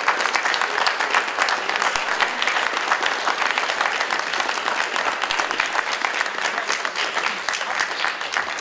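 Audience and performers applauding: sustained, dense hand-clapping throughout, easing slightly near the end.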